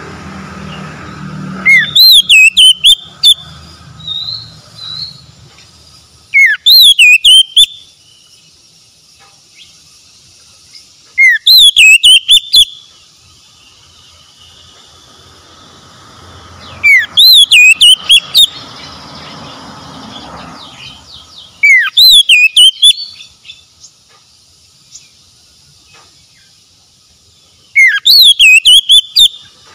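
Oriental magpie-robin singing the same short phrase six times, about every five seconds: each opens with a quick rising whistle, then a fast run of loud, high, chirping notes lasting about a second and a half.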